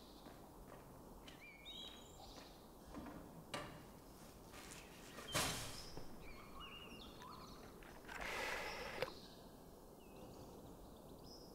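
Small birds chirping in short repeated calls over quiet outdoor ambience. A few sharp knocks break in, the loudest about five seconds in, and there is a short scraping or rustling noise lasting about a second near the eight-second mark.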